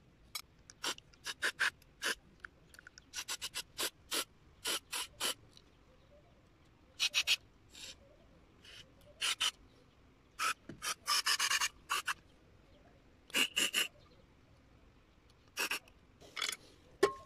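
Aerosol cleaner sprayed through a red extension straw into the passages of a Honda GX160 carburetor: many short hissing blasts with gaps between them, and a longer blast about eleven seconds in.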